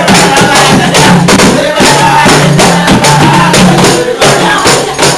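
Live band music: fast, even percussion strokes over a bass line, with a melody on top.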